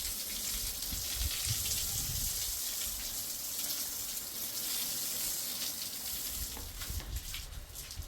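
Water running steadily from a tap into a kitchen sink, with a few light knocks near the end.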